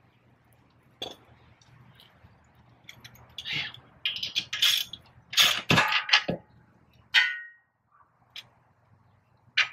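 Metal clinking and scraping as hand tools and parts knock against a Honda Pilot's front hub and drilled brake rotor. There are scattered knocks, a busy run of clinks through the middle, and one ringing metal clank about seven seconds in.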